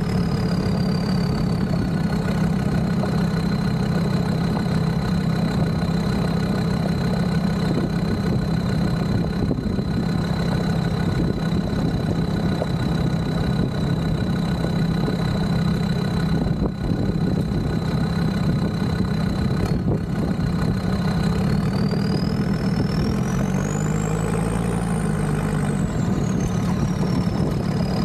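Land Rover Discovery 2's Td5 diesel engine running steadily with a thin high whine over it. Near the end the revs rise and fall, and the whine climbs in pitch and drops back.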